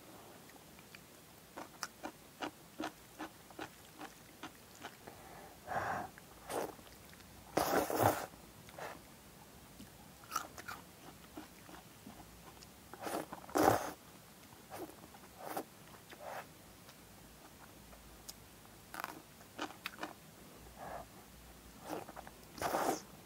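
Close-up eating sounds of jajangmyeon (black-bean-sauce noodles): wet chewing and mouth clicks, broken by several short, loud slurps of noodles, the loudest about 8 and 14 seconds in. Crisp bites of pickled yellow radish (danmuji) are among them.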